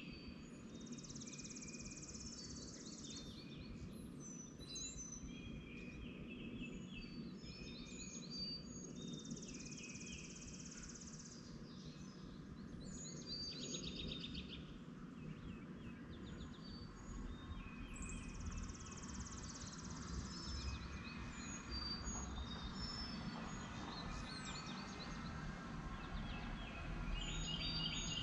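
Morning bird chorus: several birds chirping and singing, with a high, dry trill about two seconds long that comes back three times, over a steady low background rumble.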